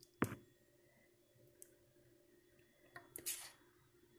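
Handling noises as beaten egg mixture is poured from a clear plastic container into a baking pan: a sharp click about a quarter second in, a few light ticks, and a brief rustle about three seconds in.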